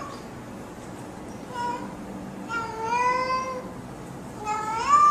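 Domestic calico cat meowing three times: a short meow, then a longer one rising in pitch, then another rising meow.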